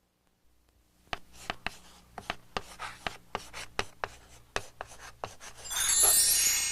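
An irregular run of sharp clicks or taps, about three a second, starting about a second in, followed near the end by a bright, high shimmering chime that swells and fades.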